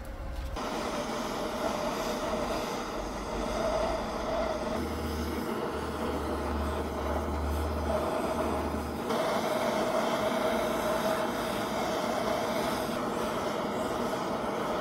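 Steady rushing hiss of a heating tool played over the freshly welded gear actuator shaft, warming it so the weld cools slowly.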